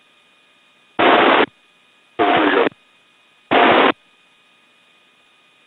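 Steady radio hiss with faint steady whistling tones, broken three times by short half-second bursts of unintelligible radio transmission.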